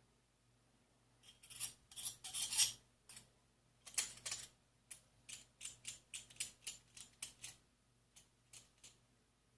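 Short, sharp scraping or rubbing strokes: a quick cluster from about one to three seconds in, then a steady run of about two strokes a second that thins out near the end.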